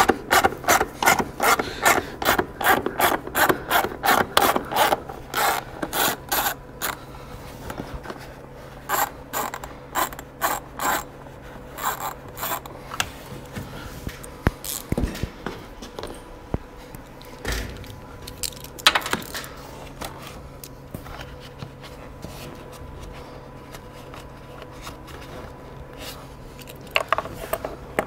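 Hand ratchet with an 8 mm socket clicking steadily, about three clicks a second, as it backs out bolts. The run of clicking stops after about seven seconds; a few short runs and single clicks follow, and the ratcheting starts again near the end.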